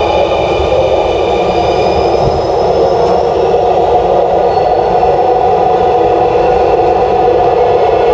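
Dhaka Metro Rail train, heard from on board: a loud, steady rumble with a high electric whine from its drive that shifts slowly in pitch.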